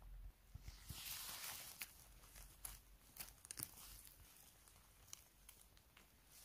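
Faint rustling and crinkling with a few scattered light snaps and clicks, from someone moving about and handling things while picking mushrooms.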